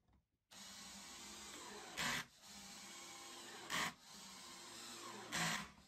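Cordless drill/driver driving wood screws into plywood: a steady whirr starts about half a second in, broken by three short, much louder bursts about 1.7 seconds apart.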